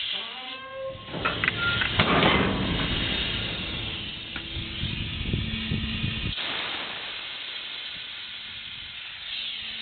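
Compressed air hissing through a pickup's air-cylinder dump bed as the cylinders raise the bed. The hiss is loudest from about one to six seconds in, then drops to a softer, steady hiss. A few short rising squeaks come about half a second in.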